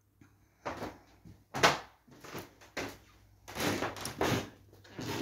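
Footsteps and handling knocks as a phone is carried across a room, a thump every half second to a second, the loudest about one and a half seconds in, over a faint low steady hum.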